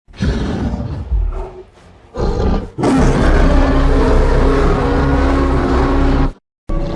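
Kong's giant-ape roar sound effect: a few short growls, then a long, loud roar from about three seconds in that cuts off suddenly after about three and a half seconds. Another clip starts right at the end.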